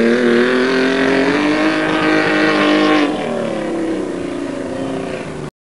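Race car engine running at speed, its pitch climbing slowly, then falling and fading about three seconds in; the sound cuts off abruptly shortly before the end.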